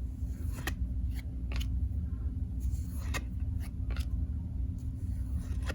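Hockey trading cards being handled and flipped through one at a time: a string of short, crisp card flicks and rustles, about eight in all, over a steady low hum.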